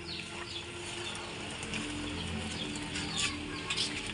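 Wok of soup steaming over an open wood fire, a steady hiss with a few sharp crackles, while birds chirp in the background near the start.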